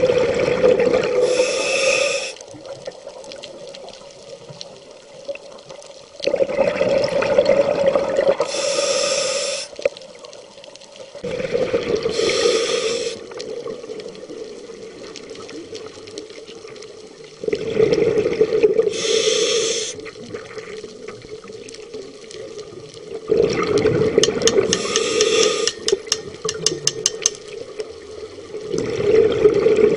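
Scuba diver breathing through a regulator underwater: a loud rush of exhaled bubbles and the hiss of the demand valve, repeating as a slow, steady breath cycle about every five to six seconds, six times.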